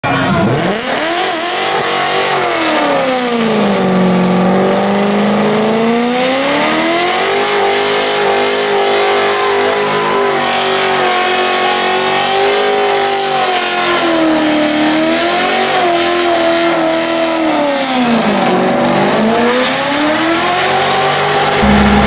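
Ford Mustang doing a burnout: the engine is held at high revs, its note swinging slowly up and down several times, over the continuous squeal of the spinning rear tyre.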